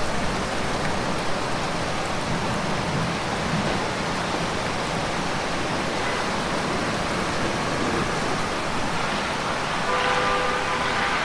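Steady heavy rain falling, an even continuous hiss of drops on surfaces. About ten seconds in, a faint held set of tones sounds underneath.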